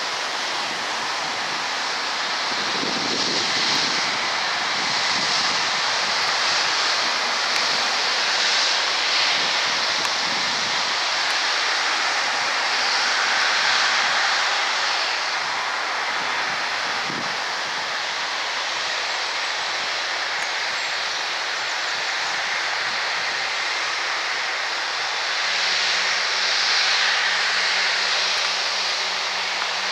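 Boeing 787-8 jet engines running at taxi power as the airliner turns onto the runway: a steady jet hiss and whine that swells and eases a few times, with a low steady hum joining near the end.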